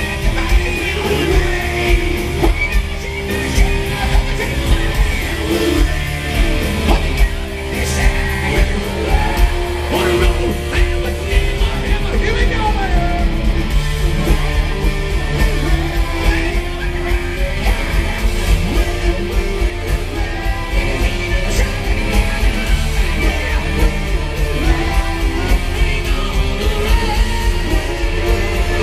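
A live hard rock band playing: electric guitars, bass guitar and a drum kit, with a lead singer's voice over them.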